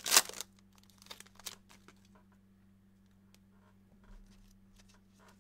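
A foil-wrapped pack of trading cards torn open with one sharp rip right at the start, followed by a few crinkles and light taps of foil, then quiet over a low steady hum.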